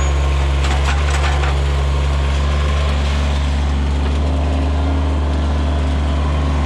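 Kubota BX sub-compact tractor's three-cylinder diesel engine running steadily at working speed under way. Brief crackling about a second in.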